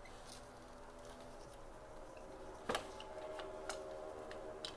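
Small clicks and taps of plastic printer parts and cable connectors being handled during disassembly, with one sharper click a little past halfway through.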